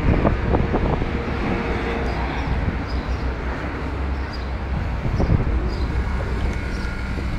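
Wind buffeting a handheld phone's microphone: a steady low rumble and hiss, with a few knocks in the first second.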